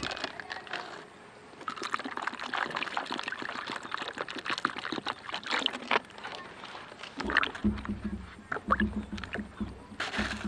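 Water sloshing in a plastic basin as a hand presses and rubs peeled green mango halves in it, from about three seconds before the end. Before that there is a stretch of light crackling and rustling.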